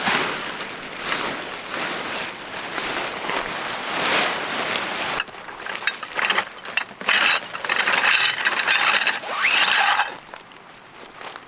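Rasping, ratchet-like mechanical sounds in repeated strokes, swelling and fading through the first half, then choppier and louder from about six to ten seconds in.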